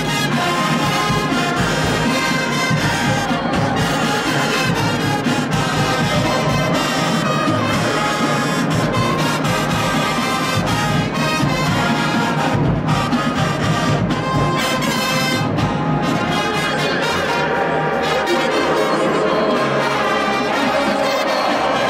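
Show-style marching band playing at full volume, led by its brass: trumpets, trombones and sousaphones, with no break in the music.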